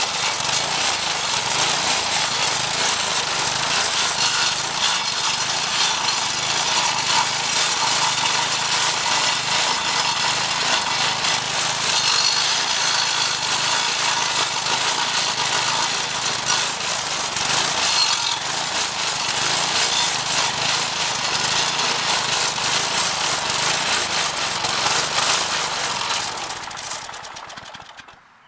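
Briggs & Stratton 4.5 hp vertical-shaft engine on an edger converted to a stump grinder, running under load while its 10-inch carbide-tipped blade grinds into a hard mulberry stump: a loud, continuous grinding over the engine's hum. Near the end it winds down and stops.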